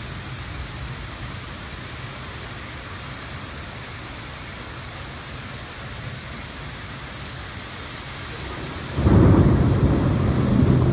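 Heavy rain falling steadily, then about nine seconds in a sudden loud rumble of thunder that carries on.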